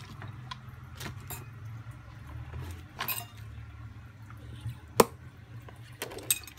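Small clicks and taps of hard phone parts being handled by hand, with one sharp click about five seconds in, over a low steady hum.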